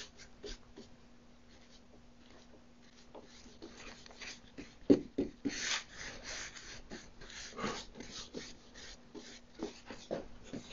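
Paintbrush scratching and swishing in repeated short strokes as paint is brushed onto a wooden cabinet panel, the strokes louder from about halfway through. A faint steady hum lies underneath.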